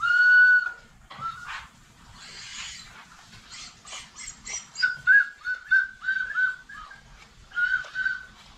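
A dog whining: one long, high whine at the start, then a run of short whines from about five seconds in.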